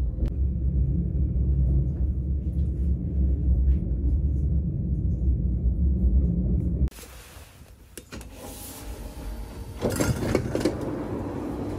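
Steady low rumble of a passenger train running, heard from inside the carriage. About seven seconds in it cuts to much quieter station sound with a few clicks, and louder train noise returns near the end.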